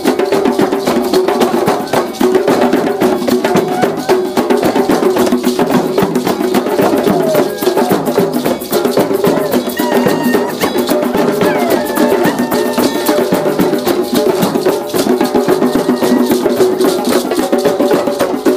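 Drum circle: many djembes and hand drums struck together in a dense, steady rhythm that carries on without a break.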